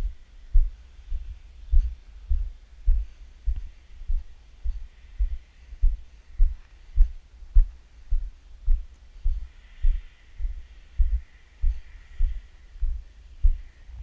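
Footfalls of someone walking with the camera, heard as low, regular thumps nearly two a second. A faint hiss rises partway through.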